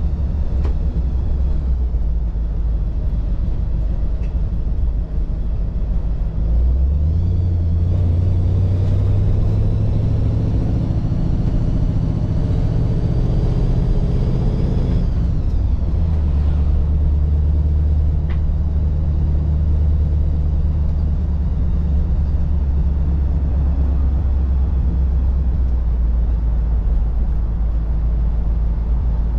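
1948 Mercury's 239 cubic inch flathead V8 running with the car under way, over a steady low road rumble. About seven seconds in, the engine's pitch climbs steadily for about eight seconds, then drops off quickly and settles into a steady run again.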